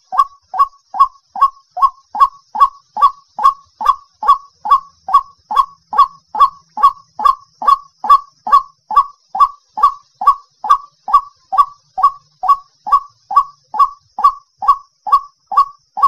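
White-breasted waterhen calling: a long, monotonous run of short notes repeated evenly at about two and a half a second, each note dipping slightly in pitch.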